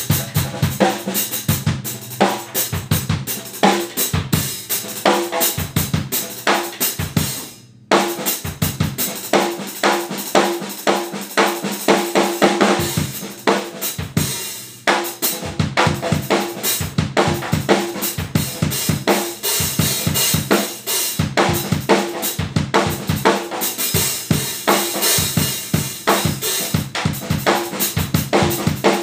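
Drum kit played: a busy groove of bass drum, snare, hi-hat and cymbals, with one short break about eight seconds in before the playing comes back in on a hard hit.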